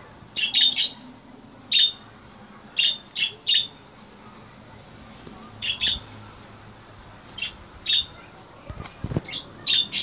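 Caged budgerigars giving short, sharp squawking calls, singly or in quick clusters of two or three, with a quieter gap of about two seconds in the middle.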